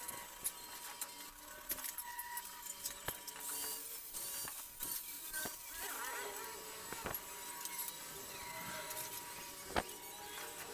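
Cut pieces of hollow square steel tubing knocking and clinking as they are handled and set down on a concrete floor, with scattered sharp metal knocks, the loudest near the end.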